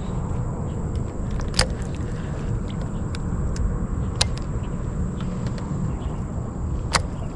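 Steady low rumble of wind and waves on a small fishing boat, with three sharp knocks about two and a half seconds apart and a faint steady high whine.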